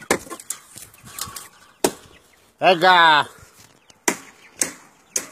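About half a dozen sharp knocks and taps at irregular intervals, with a voice calling once in the middle.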